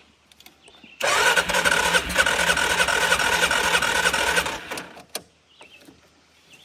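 ATV engine being turned over by its electric starter for about three and a half seconds in an even, rapid rhythm, then released without the engine catching. It is primed with carb cleaner but will not fire, and the battery is weak.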